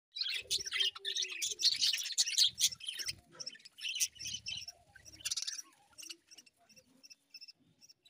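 A flock of budgerigars chattering and chirping, dense and busy for about the first five seconds, then thinning to scattered chirps.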